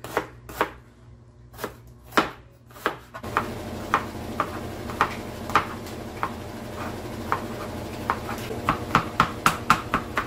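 Kitchen knife chopping on a plastic cutting board: a few separate cuts through an onion, then garlic cloves sliced and minced with repeated knocks that come faster near the end. A steady low hum runs underneath from about three seconds in.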